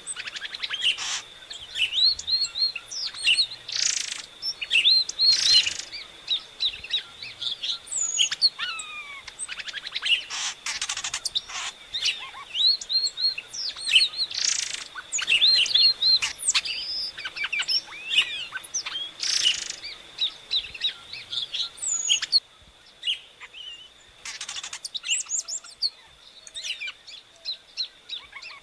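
Epaulet oriole (Icterus cayanensis) singing: a long, varied run of short whistled notes, slurred glides and chatters, with a steady high tone running underneath.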